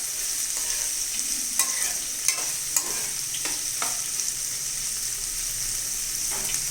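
Boiled cluster beans frying in oil in a pan with a steady sizzle, while they are stirred and the stirring utensil clicks against the pan several times.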